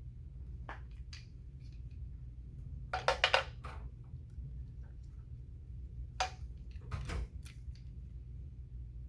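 Scattered sharp clicks and clacks from handling a Milwaukee cordless rivet tool and its rivets. The loudest is a quick cluster of clacks about three seconds in, with more clicks near six and seven seconds, over a low steady hum.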